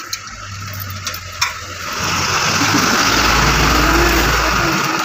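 A motor vehicle's engine passing close by: it swells from about two seconds in, is loudest about four seconds in, and begins to fade near the end.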